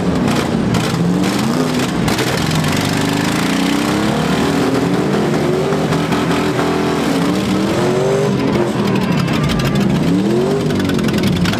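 Several demolition-derby pickup truck engines revving hard, their pitch rising and falling over and over.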